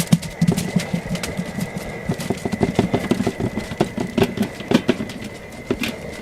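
Irregular clattering of hard objects, many rapid sharp knocks and clicks close together, over a steady thin high whine.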